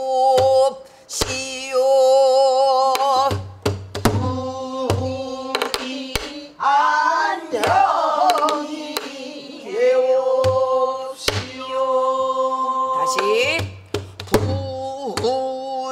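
A woman singing pansori in long, wavering held notes, accompanying herself with sharp strokes of a buk barrel drum at uneven intervals.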